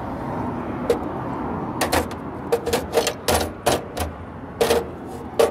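Small metal valve parts and pliers clinking and clattering against a perforated steel plate as an air valve is taken apart: about a dozen sharp, irregular knocks, the last one loudest.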